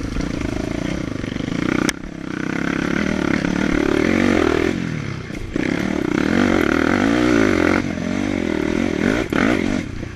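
Enduro dirt bike engine running close to the microphone, its revs rising and falling again and again as it rides, with a brief sharp click about two seconds in.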